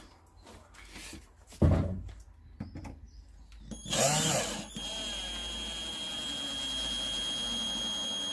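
Electric drill, turned down to a lower setting, driving a small terminal screw: after a knock about a second and a half in, the motor starts near the middle and runs with a steady whine for about four seconds, stopping at the end.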